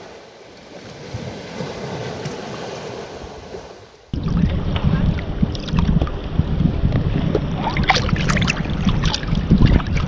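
Sea waves washing on a pebble beach as a soft, steady wash. About four seconds in it cuts to loud sloshing and slapping of sea water against a camera at the water surface, with sharp splashes toward the end as waves wash over it.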